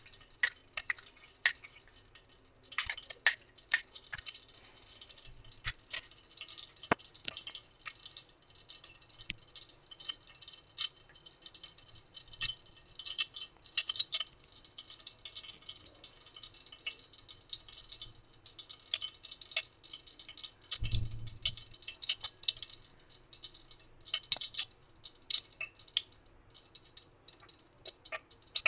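Ghee heating in the bottom of a pressure cooker on a gas flame, giving scattered sharp pops and crackles at an uneven pace, with one dull thump about three quarters of the way through.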